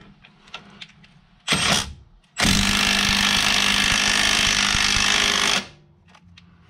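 Impact wrench run-down of a 21 mm strut-to-knuckle bolt: a short burst about a second and a half in, then about three seconds of steady hammering that stops abruptly as the bolt is snugged up ahead of final torque.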